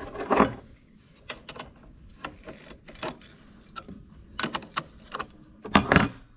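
Metal hand tools clanking and clicking: a wrench being worked on the nut that holds the wire wheel on a bench grinder. An irregular string of sharp knocks, the loudest about half a second in and again near the end.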